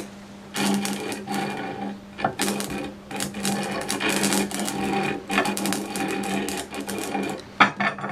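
Rewound microwave-oven transformer with a thick 2-gauge secondary humming steadily under a short circuit, over loud crackling buzz from sparks arcing at the shorted secondary. The crackling stops about seven and a half seconds in, followed by a few sharp snaps.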